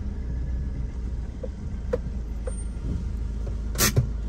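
Car engine and tyres rumbling low inside the cabin while driving slowly; the car is freshly serviced and running smoothly. A few faint clicks, and a sharp knock about four seconds in.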